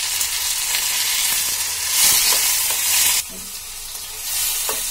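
Chopped tomatoes sizzling in hot mustard oil with fried onions and spices as a steel spoon stirs them. The sizzle swells about two seconds in and drops suddenly just past three seconds.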